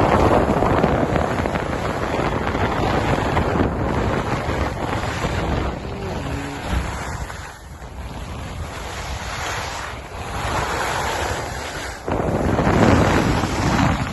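Wind buffeting the microphone: a loud, rushing roar that eases off in the middle and surges again near the end.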